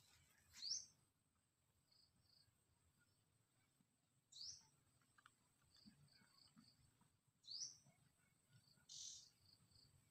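Faint forest ambience: a short high rising chirp heard three times, about three seconds apart, with small high notes between and a short burst near the end, over a steady high-pitched insect whine. The chirps are typical of a bird calling.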